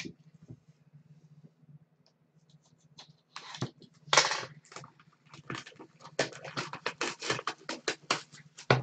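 A sealed trading-card box and its wrapping being torn open by hand. After about three seconds of near quiet come rustling and tearing sounds, with a rapid run of short rips in the second half.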